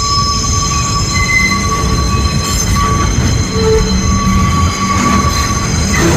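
An R160A subway train entering a station, with a steady rumble of wheels on rails and several high, steady squealing tones over it.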